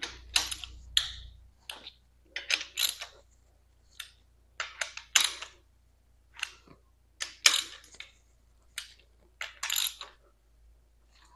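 Hand ratchet clicking in short bursts, a few strokes at a time, as it turns a socket on an extension to tighten intake manifold bolts.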